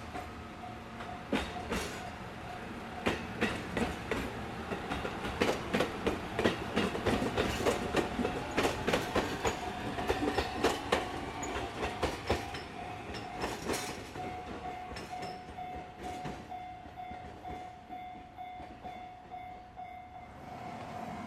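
HB-E300 series hybrid train moving off and passing close by, its wheels clacking over rail joints and points. The clacking is loudest midway and thins out as the train moves away. A steady repeating ding sounds throughout.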